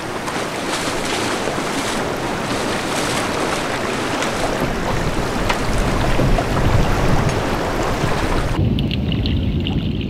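Steady rushing noise of sea water and wind at the surface. About eight and a half seconds in it cuts to a muffled low rumble of water heard underwater.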